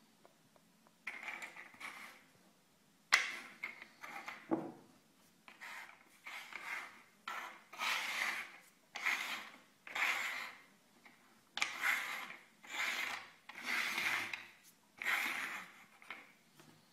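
Small upturned shells being slid and shuffled across a wooden tabletop: a string of short scrapes, about one a second, with a sharper knock about three seconds in.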